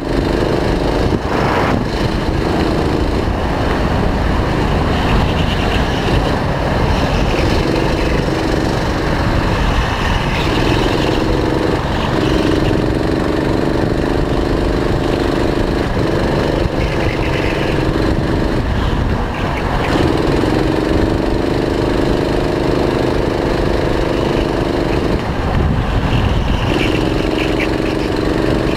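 Go-kart engine heard from on board at speed, running at a steady high note on the straights. It falls away several times, about every few seconds, as the throttle is lifted for corners, then picks up again, over a constant low rumble.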